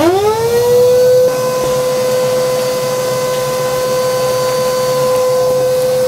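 Shop vac switched on: its motor spins up with a rising whine that levels off within about a second, then runs with a steady high-pitched whine as it sucks up sawdust.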